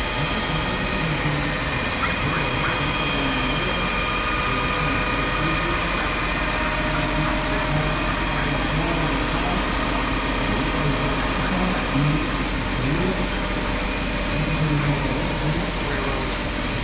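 Fountain jets splashing into a stone basin: a steady, unbroken rush of falling water.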